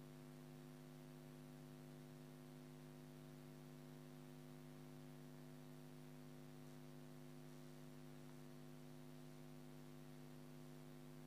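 Faint, steady electrical hum with a stack of overtones, unchanging throughout; otherwise near silence.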